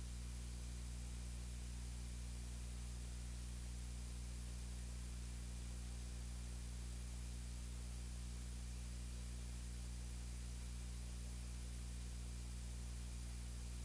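Steady low hum with an even hiss, unchanging throughout, with no speech.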